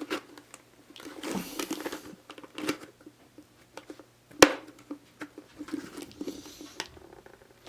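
Plastic parts of a Dyson DC29 dust canister being handled and pushed together to press-fit a softened piece back on, with scraping, rustling and small knocks. A single sharp plastic click comes about halfway through.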